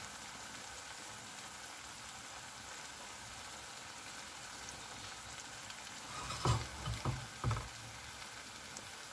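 Eggs and chopped vegetables frying in oil in a ceramic-coated pan: a steady, even sizzle. A few short soft knocks break in about six and a half to seven and a half seconds in.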